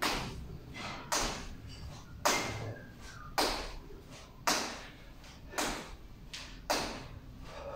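Jump squats on a tile floor: sneakers land with a sharp thud about once a second, with fainter taps between the landings.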